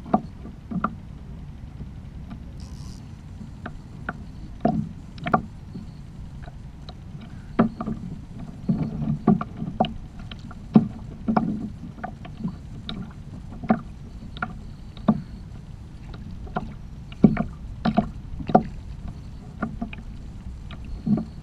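Small waves slapping against the plastic hull of a Hobie kayak: irregular sharp knocks, roughly one a second, over a steady low rumble.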